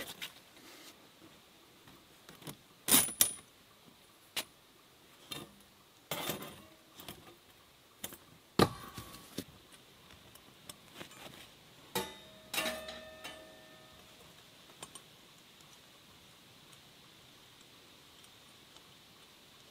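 Scattered light metallic clinks and taps, a few seconds apart, a couple of them ringing briefly, from handling the metal stove jack ring and its bolts on the canvas tent wall.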